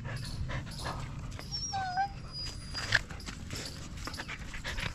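Dog whining: one brief wavering whine about two seconds in, then a short sharp yip just before three seconds.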